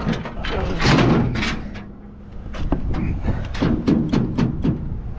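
A series of sharp knocks and metal clatter at the back of a box truck as its liftgate is worked, with a low steady hum underneath from about a second in.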